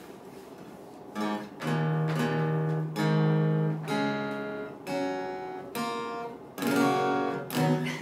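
Acoustic guitar strumming a run of chords, about one a second, starting about a second in.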